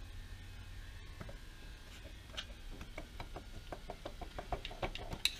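A run of light clicks and taps from a hand tool working at the edge of a lathe apron's cover to pry it off, coming faster and louder toward the end, over a faint low hum.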